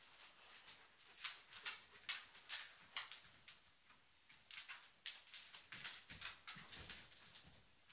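Faint rapid panting, short breathy puffs at about four a second, in two runs with a pause about halfway.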